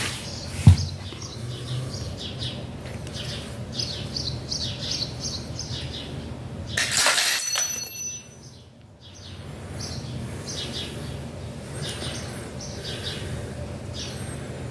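Small birds chirping repeatedly, with a loud rush of noise lasting about a second, about seven seconds in.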